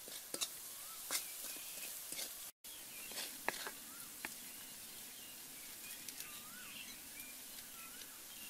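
Outdoor woodland ambience with a steady high hiss and several short bird chirps that rise and fall in pitch. A few sharp clicks and taps stand out in the first half, and the sound cuts out for an instant about two and a half seconds in.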